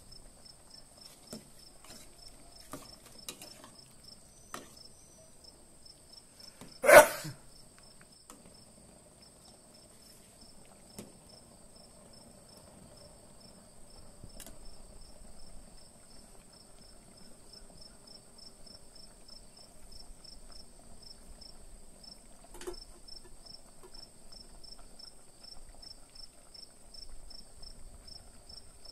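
Crickets chirping in a steady pulsing trill, with one loud, sharp clatter about seven seconds in. From about halfway, a metal spatula stirs curry simmering in an aluminium pot, a faint soft scraping and bubbling under the chirping.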